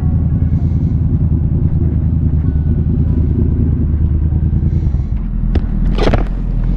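Yamaha MT-07 parallel-twin engine running at low speed with a low, pulsing note that changes about five seconds in. About a second later comes a brief loud rustle as something brushes over the camera microphone.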